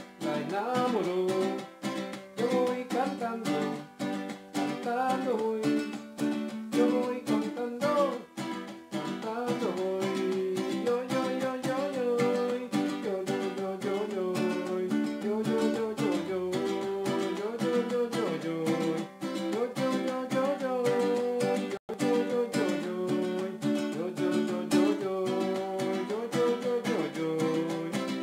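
Ukulele strummed steadily in a quick rhythm, playing a run of chords.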